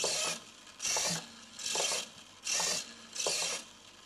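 Small RC model servos whirring through their gears in short back-and-forth sweeps, about one movement every 0.8 seconds, driving their horns and pushrods at 100% travel.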